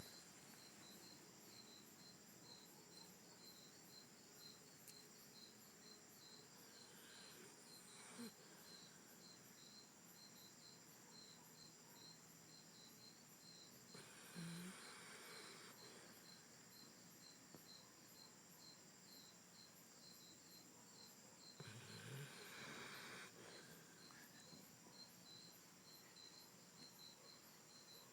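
Pit bull snoring faintly in its sleep: three long snoring breaths about seven seconds apart, over a steady high chirping.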